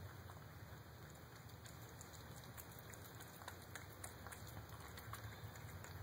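Cat eating from a bowl close by: faint, irregular clicking of chewing and licking.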